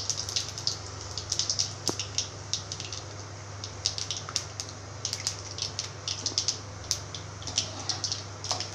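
Hot oil sizzling in an aluminium kadai, with rapid, irregular crackles and pops as mustard seeds, chana dal and cumin seeds fry in it during a tempering. A steady low hum runs underneath.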